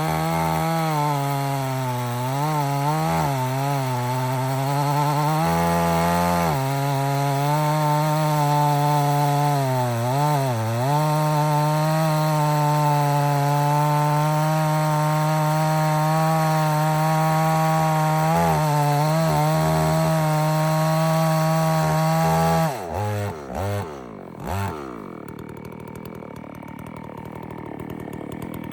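Farmmac F380W two-stroke chainsaw running at full throttle while cutting wood, its engine pitch dipping and recovering several times as the chain bogs under load. Near the end the throttle is released; the engine drops off with a couple of quick blips and falls back to a much quieter low running.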